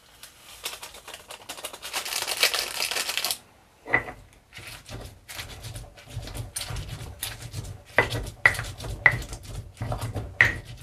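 Kitchen utensils handled while cooking: a rush of noise for about three seconds, then a run of irregular knocks and clinks, several ringing briefly.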